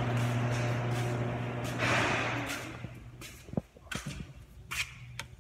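A steady low mechanical hum that fades away about halfway through, followed by a few light taps and knocks of footsteps on a concrete walk.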